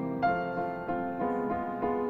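Background piano music, notes and chords struck about every half second.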